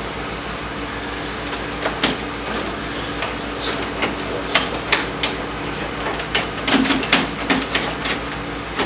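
Hard plastic console and bodywork panels on a motorcycle's dash clicking and knocking as they are worked back into place by hand, with scattered light knocks that come more often in the second half.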